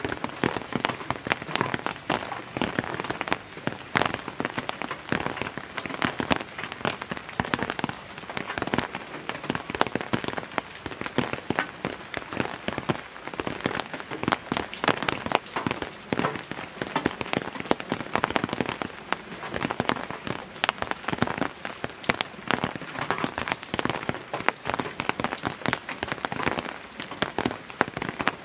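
Heavy rain falling, a dense, steady patter of drops.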